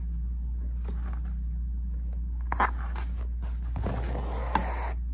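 Embroidery needle and thread being pulled through fabric. There is a short sharp scratch about halfway through, then a longer rasp ending in a click, all over a steady low hum.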